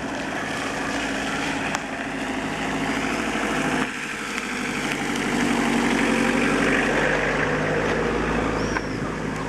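A motor vehicle's engine running steadily, louder in the second half, with abrupt breaks at about 4 seconds and near 9 seconds.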